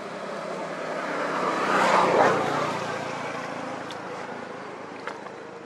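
A vehicle passing by, its noise swelling to a peak about two seconds in and then slowly fading away.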